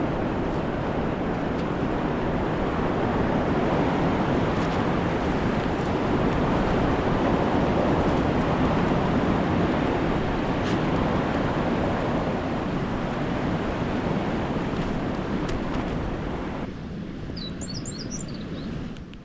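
Strong wind rushing steadily and buffeting the microphone, swelling and easing slowly, then dropping off suddenly near the end.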